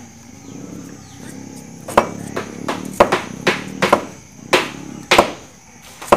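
Heavy knife chopping the skin off a wild yam (kloi) tuber on a wooden plank: a run of about eight sharp knocks starting about two seconds in, roughly two a second.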